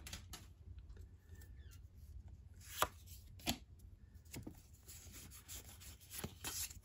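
Faint rustle and slide of a stack of Pokémon trading cards being handled and rearranged in the hands, with two sharper taps about a second apart in the middle.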